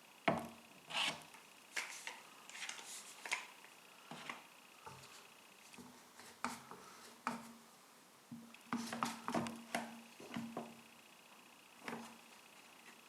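Scattered light knocks, clicks and rubs of an oak board and tools being handled and set in place on a workbench, with a faint steady hum underneath.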